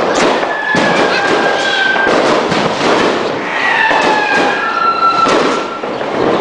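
Fireworks going off in a dense barrage of bangs and crackles, with several thin whistling tones held over them.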